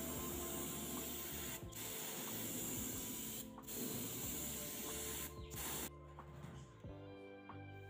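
Airbrush spraying paint in a steady hiss, released in spells of about a second and a half with short breaks between, and stopping about six seconds in.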